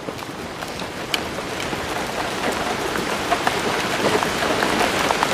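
Heavy rain falling, with many individual drops striking a surface. It swells up over the first two seconds, then holds steady.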